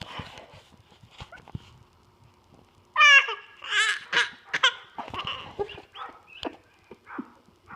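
A young child's voice: a sudden loud, wavering squeal about three seconds in, then a quick run of short vocal bursts.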